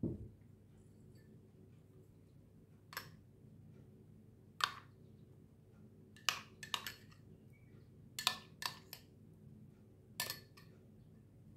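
A spoon clicking and clinking against glass bowls as yogurt is spooned onto spiced chicken: sharp taps every second or two, several in quick clusters. A duller knock comes right at the start as a glass oil bottle is set down on the table.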